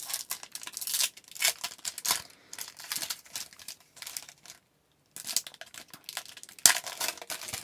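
A 2014-15 Upper Deck MVP hockey card pack wrapper being crinkled and torn open by hand, in a string of short rustling bursts with a brief lull a little after halfway and a sharp snap near the end.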